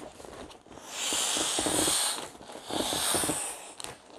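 Air hissing out of an Intex Explorer K2 inflatable kayak seat cushion through its armband-style push valve as the cushion is pressed flat, in two bursts of about a second each.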